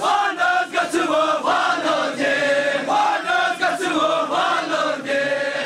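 A crowd of devotees chanting and calling out together, many voices overlapping.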